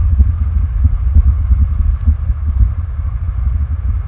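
Wind buffeting the microphone: a heavy, unsteady low rumble that rises and falls with the gusts, over a steady faint hiss.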